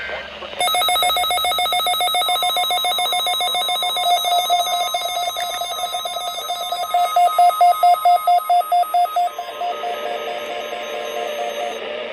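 Weather-alert radio receiver's electronic alarm beeping, a harsh pitched tone pulsing several times a second, set off by a received EAS weekly test; it stops just before the end.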